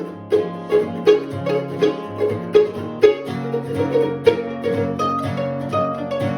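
Instrumental break of an acoustic song, with no singing: a quick, picked lead of plucked-string notes over a steady plucked accompaniment.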